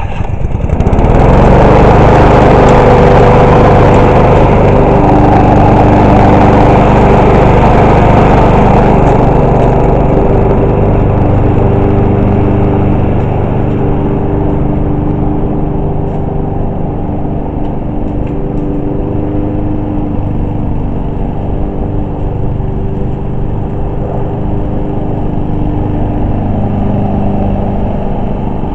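Subaru 21-inch self-propelled lawn mower engine starting about a second in, then running steadily at speed as it mows. It gets a little quieter after about ten seconds.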